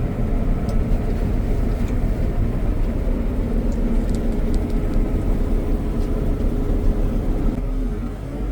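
CLAAS Lexion 6900 combine harvester running steadily: a deep, even machine rumble with a constant hum.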